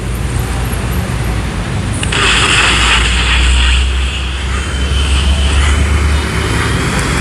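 Grundig G2 Reporter portable radio hissing with FM static as it is tuned between stations, over a low rumble on the microphone. The hiss is strongest two to four seconds in.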